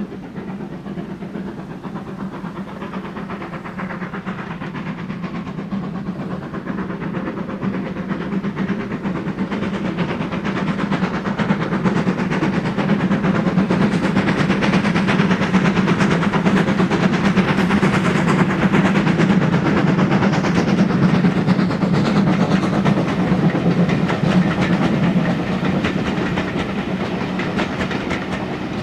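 Steam locomotive hauling a train of coaches, drawing nearer and louder over the first half and then passing close by. Its coaches roll past on the rails with a clickety-clack.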